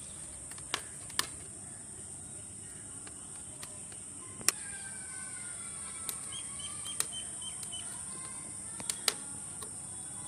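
Birds calling: falling whistled notes from about four seconds in, then a quick run of about six short chirps, over a steady high-pitched drone. A few sharp clicks stand out as the loudest sounds.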